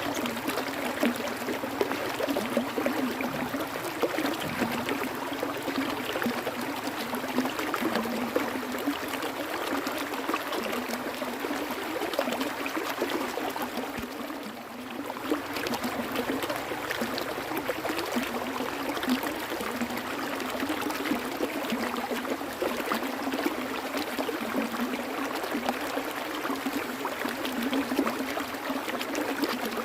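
Flowing water in a stream: a steady, even rush dotted with small splashes, dipping briefly about halfway through.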